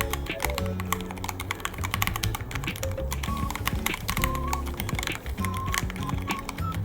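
Continuous fast typing on a Ducky One 3 mechanical keyboard: a rapid, uneven stream of key clicks, with background music underneath.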